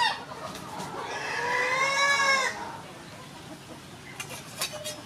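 Rooster crowing: one long arched call lasting about a second and a half, after a short sharp cry at the very start. A few light clicks come near the end.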